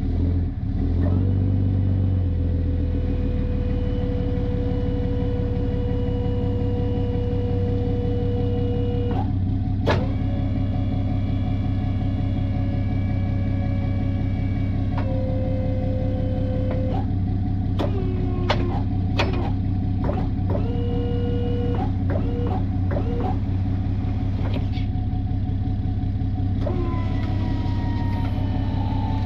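Pickup tow truck's engine running steadily while the wheel lift's powered hydraulics whine in runs of a few seconds, one long run of about seven seconds and several shorter ones, the last falling in pitch, with a few metallic clunks as the lift arms move under the Jeep.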